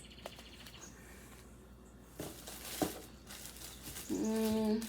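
Faint rustling and a few light clicks from handling a plastic retail jewellery pack, then a short steady hummed note near the end.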